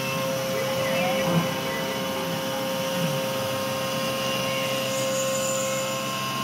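A 4 mm four-flute carbide end mill in a Langmuir Systems MR-1 CNC mill, full-width slotting CPM 154 stainless steel at 8,000 rpm. It makes a steady, high cutting whine over the spindle's running noise. The main whine tone drops out briefly near the end.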